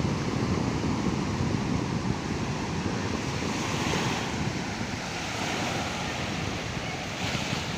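Sea waves washing onto the shore, two swells of surf hiss about halfway and near the end, over a steady rumble of wind buffeting the microphone.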